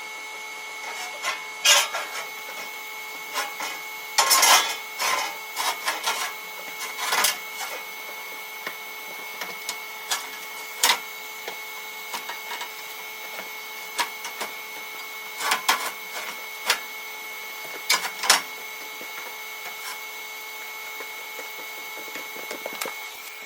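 Irregular clanks, knocks and short scrapes of steel being shifted and pushed into place under a welding table, with the loudest flurries about four to five seconds in and near eighteen seconds, over a faint steady hum.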